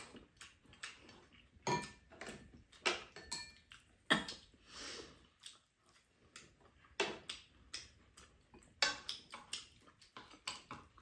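Spoons and chopsticks clinking and scraping against a frying pan and ceramic bowls at a meal. The taps come irregularly, several a second at times, and a few ring briefly.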